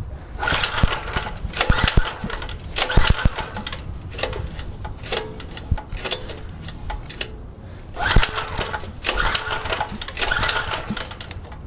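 Recoil pull-starter of an 87cc 3.5 hp four-stroke generator engine being yanked again and again, each pull a short burst of cranking, without the engine staying running. The engine is flooded and its spark plug wet from too much hydrogen gas fed into the intake.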